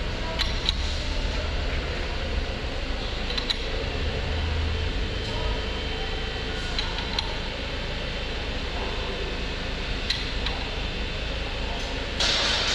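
Steady workshop background hum with a handful of short, sharp metallic clicks from hand tools at work on a partly assembled diesel engine, and a brief louder rustling burst near the end.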